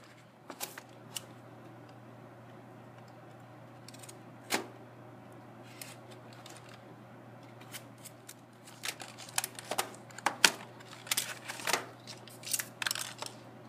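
A toy blaster's cardboard box and its packaging being handled and opened, with scissors in play: scattered sharp clicks and scrapes, then a denser run of rustling and clicking over the last few seconds as the pistol is lifted out of the box.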